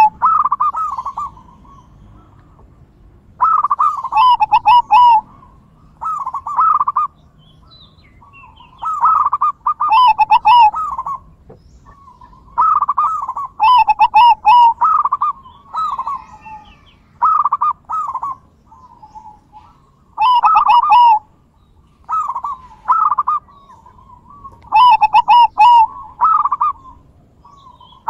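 Zebra doves (perkutut) cooing: phrases of quick, bubbling notes, each lasting one to two seconds, repeating every couple of seconds.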